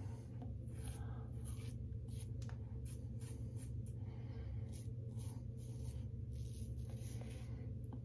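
Rockwell 6S double-edge safety razor scraping through shaving lather and stubble in a series of short strokes, over a steady low hum.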